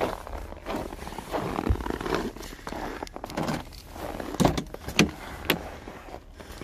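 Footsteps crunching on packed snow, then three sharp clicks and knocks in the later part as the frost-covered door of a Volkswagen Golf Mk5 is unlatched and pulled open.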